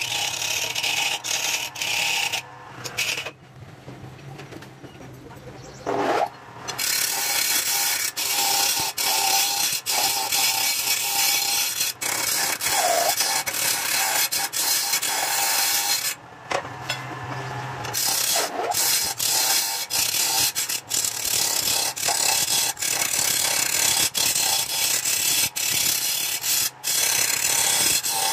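Turning tool cutting a large wooden vase blank spinning on a wood lathe: a steady rasping hiss of shaving wood. It breaks off twice, about three seconds in for about three seconds and again about sixteen seconds in for under two seconds, leaving only the lathe's low motor hum.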